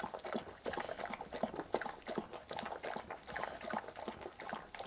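A dog eating, with many quick, irregular smacks and clicks of its mouth.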